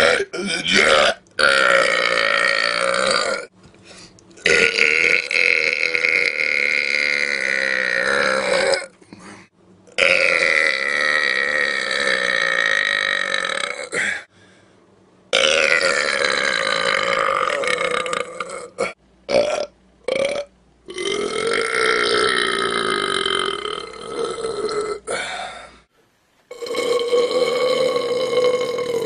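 A man belching loudly, one long drawn-out burp after another. There are about six big burps of two to four seconds each, their pitch sliding as they go, with a few short ones in between.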